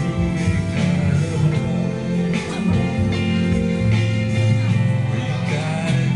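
Background pop music with guitar, sustained notes over a steady bass line.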